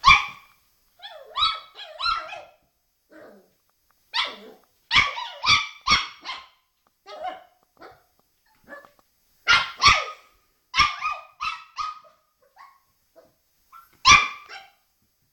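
A puppy barking in high-pitched yaps, in short clusters with quiet gaps between, at its own reflection in a mirror.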